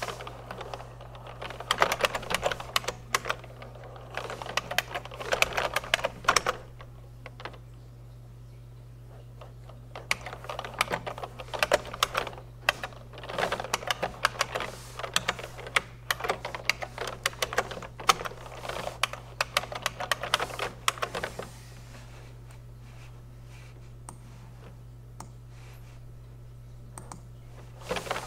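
Bursts of typing on a computer keyboard: quick runs of key clicks with pauses between, and a longer quiet spell near the end before the typing starts again. A steady low hum runs underneath.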